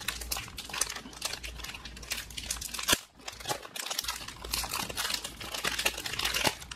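Foil Pokémon booster pack wrapper crinkling as hands tear it open and pull the cards out, with one sharper snap about three seconds in.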